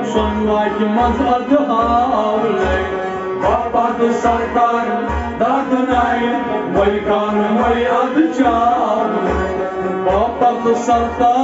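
Kashmiri Sufi ensemble: men singing with harmonium, bowed sarangi and plucked rabab, over a drum keeping a steady beat of about two strokes a second.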